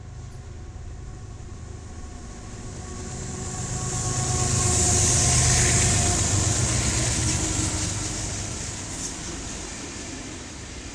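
A freight train passing at close range. The BNSF diesel locomotives' engines rumble louder, peak about five seconds in, then fade as autorack cars roll past with a steady rail hiss.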